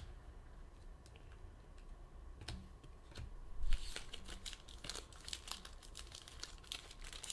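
Trading-card pack wrapper crinkling as it is handled and torn open, after a few light clicks.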